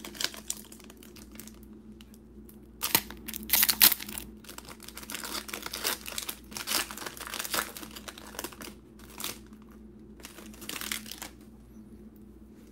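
Foil trading-card pack torn open and its wrapper crinkled, in loud bursts of tearing about three to four seconds in. Then comes a long stretch of crinkling and a last burst of rustling near the end.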